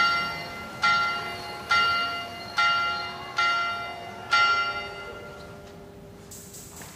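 A small turret bell struck six times, a little under a second apart, each stroke ringing on and fading; the last stroke rings out for about two seconds.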